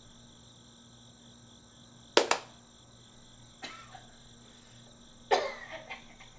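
Sharp, sudden noises over a faint steady hum: a quick double bang about two seconds in, a softer one a little later, and another loud one near the end that trails off.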